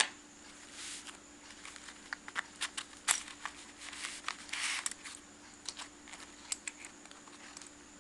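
Light irregular clicks and taps from small hard items being handled, with two brief rustles, over a faint steady hum.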